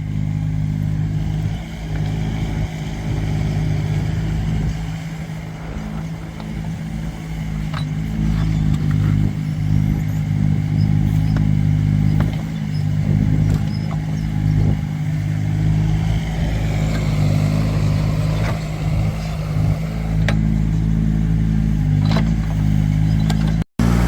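Excavator diesel engine running steadily while digging, with scattered knocks and clanks from the bucket and arm. The engine labours harder from about a third of the way in.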